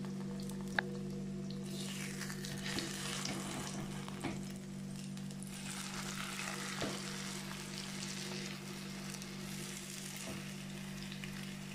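Egg omelette sizzling in hot oil in a nonstick frying pan while it is turned over with a silicone spatula, a steady hiss with a sharp click about a second in and a few soft knocks as it is turned. A constant low hum runs underneath.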